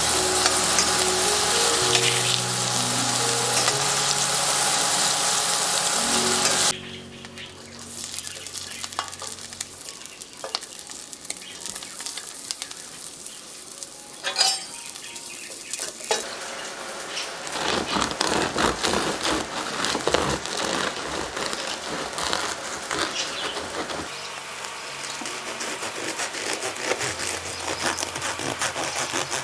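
Food frying and sizzling in a pan while being stirred, with background music over the first part. The sound cuts off abruptly about seven seconds in. Quieter stirring with utensil clicks follows, then the sizzling and stirring grow louder again.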